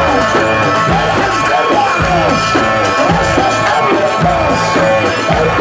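Loud music with a steady drum beat under a melody whose notes bend up and down.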